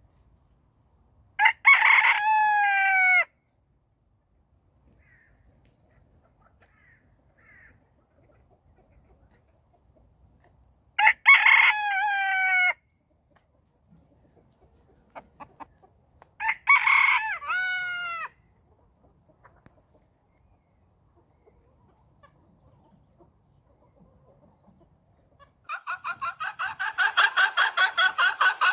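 A rooster crows three times, each crow about two seconds long, with faint clucking in the gaps between. Near the end, chickens break into a loud, rapid, continuous run of clucks.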